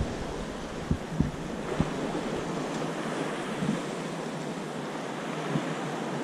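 Steady rushing of wind on the microphone and water against a small boat's hull, with a few short low thumps about a second in.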